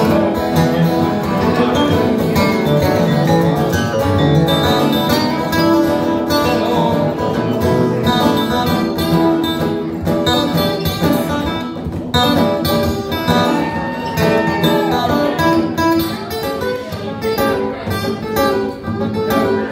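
Two acoustic guitars played together live, strummed and picked.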